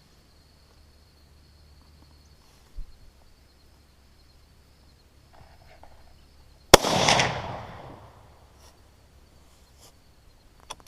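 A single rifle shot from a Remington 700 bolt-action in .243 Winchester: one sharp crack about two-thirds of the way in, followed by about a second of echo dying away.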